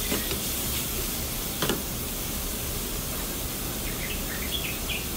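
Diced chicken breast with ginger and garlic sizzling gently in an oiled frying pan, a steady quiet hiss. A wooden spoon knocks once against the pan about a second and a half in.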